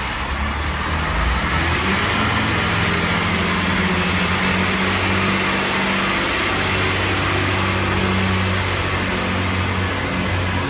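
Class 158 diesel multiple unit's underfloor diesel engines revving up as the train pulls away from a standstill, rising in pitch over the first couple of seconds, then running steadily under power.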